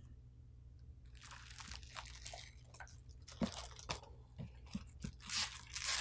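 Clear plastic bag crinkling and rustling as hands handle it and pull it open, with a few small clicks; the loudest crinkling comes near the end.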